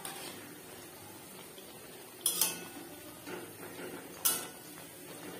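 Metal spatula clanking against a metal kadai as radish pakoras are turned in the oil: a quick double clank about two seconds in and another about four seconds in, over the steady sizzle of the deep-frying.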